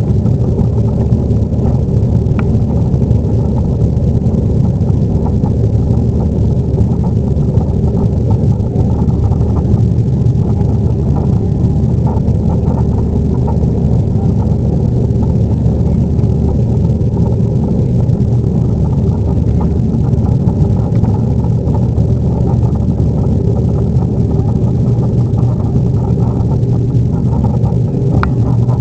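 Boeing 737-800's CFM56 jet engines and airflow during takeoff, heard from inside the cabin as a loud, steady low rumble.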